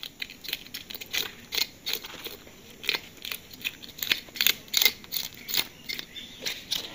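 A knife scraping scales off a large fish in quick, short rasping strokes, about three a second.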